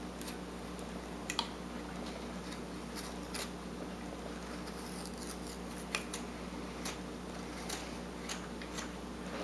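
Whittling knife paring chips off a wooden carving: short, irregular slicing cuts about once a second, over a steady low hum.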